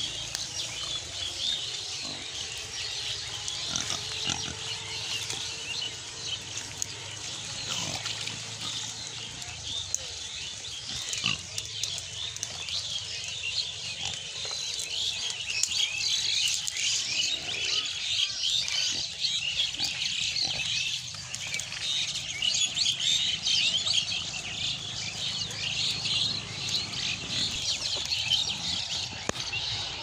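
A herd of pigs grunting as they root and forage, over a dense, continuous high-pitched crackling that grows busier in the second half.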